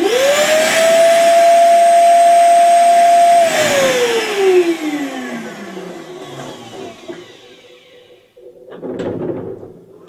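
ZUBR PU-15-1200 M1 wet/dry shop vacuum's 1200 W motor switched on, its whine rising quickly to a steady high pitch over a rush of air as the hose sucks water up from a bottle. After about three and a half seconds it is switched off, and the whine falls away as the motor spins down. A brief burst of handling noise comes near the end.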